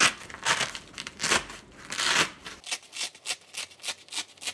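A Velcro (hook-and-loop) flap on a crash pad being peeled apart in a series of rips: a few longer tears at first, then quicker short ones about three a second.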